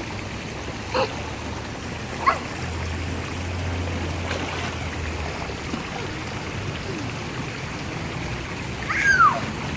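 Water fountain running in a steady rush of water, with a few short high-pitched cries over it, the last one near the end falling in pitch.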